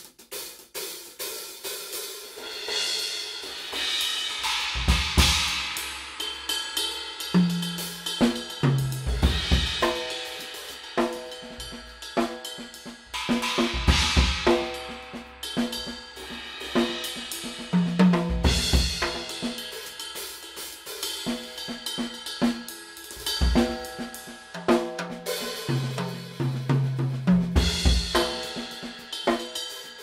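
Drum kit played in a steady groove, its B20 bronze Aisen Dirt Series cymbals (hi-hat, crashes and ride) ringing over snare, bass drum and toms. Crashes are struck every few seconds, with tom fills around a quarter, a half and near the end. The playing starts about half a second in.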